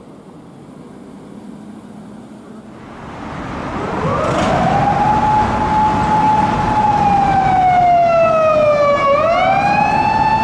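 Japanese police car siren starting up about four seconds in: a wail that rises, holds, sinks slowly and rises again, over rising road and engine noise.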